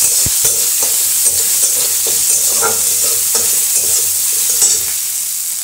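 Oil sizzling in a metal kadai as a flat metal spatula stirs and scrapes through frying whole spices, chillies, and chopped garlic and ginger. The sizzling hiss is steady, with frequent short scrapes and clicks of the spatula on the pan, and it gets somewhat quieter near the end.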